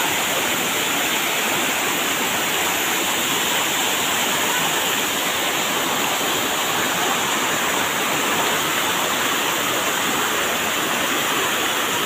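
Waterfall pouring into a shallow rock pool: a steady, unbroken rushing of falling water.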